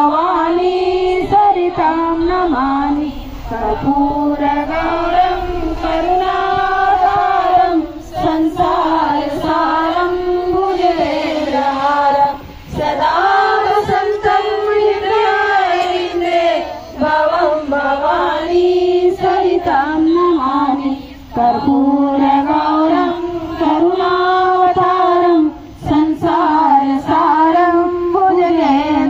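Women singing a Hindu devotional song to Shiva together in one melody line, in sustained phrases of a few seconds separated by brief pauses.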